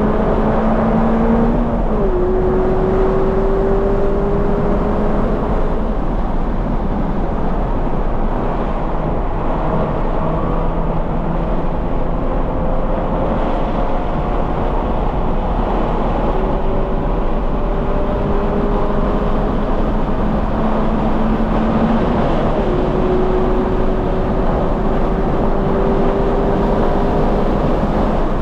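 The 2020 Toyota 86's 2.0-litre flat-four, through its Corsa cat-back exhaust, pulling hard around a racetrack. Its pitch climbs steadily, then drops suddenly on upshifts about two seconds in and again near the end. Heavy wind and road noise runs underneath.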